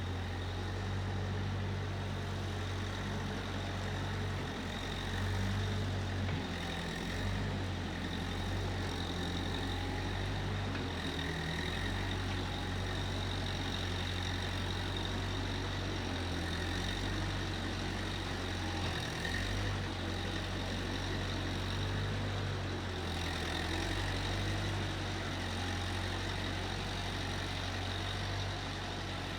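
Case 1530 Uni-Loader skid steer engine running steadily, with a faint high whine above it.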